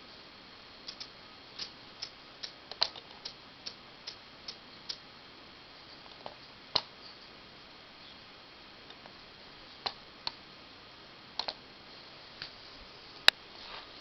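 Small tactile push-buttons on a robot's circuit board clicking as they are pressed to step through its menu: a quick irregular run of about a dozen clicks in the first five seconds, then a few scattered ones, with one sharp click near the end.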